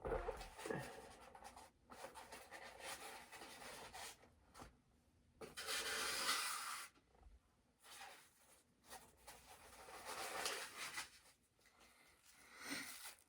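Hands working open the cardboard packaging of a boxed bobblehead: irregular bursts of rubbing and scraping, with short pauses between.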